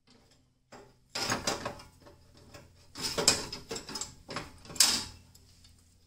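Metal clicks and clunks from a Jeep Wrangler TJ's hood latch and its spring, worked by hand through the grille, in three short clattering bursts, the last the loudest.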